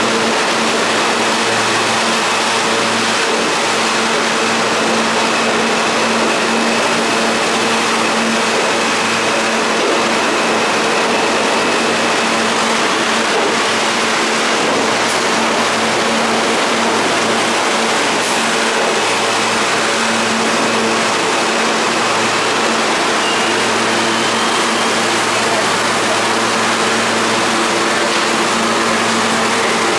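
R160 subway train running into an underground station and slowing to a stop: a loud, steady rumble of wheels and motors with a steady hum.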